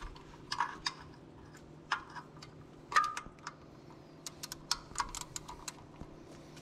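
Irregular metal clicks and clinks of a ratchet and socket extension working the thermostat housing bolts loose, with a quick run of clicks a little past four seconds and the loudest, briefly ringing clink about three seconds in. A faint steady hum sits underneath.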